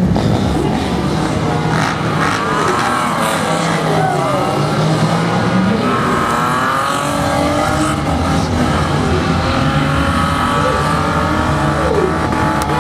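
BMW 3 Series drift car running at high revs with its tyres squealing as it slides. From about two seconds in, the squeal wavers up and down over the steady engine note.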